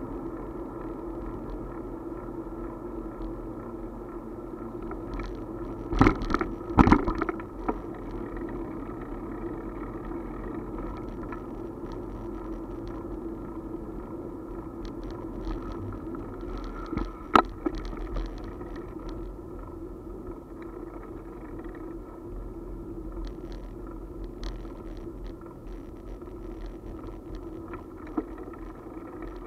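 Ride noise of a two-wheeler rolling along a paved cycle path, picked up by a camera mounted on it: a steady hum and road rumble, with sharp rattling knocks as it jolts over bumps, a cluster about six seconds in and a single one about seventeen seconds in.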